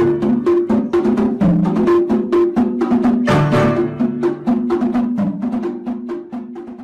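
Instrumental music with a quick, even percussion beat of wood-block-like knocks over plucked or struck pitched notes, fading out near the end.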